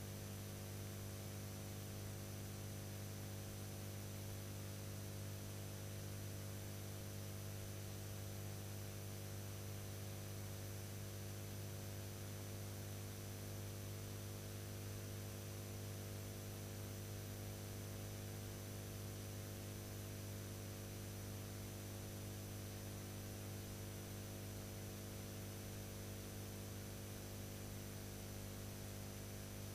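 Steady electrical mains hum with a constant hiss and nothing else: the empty soundtrack of a silent-film transfer.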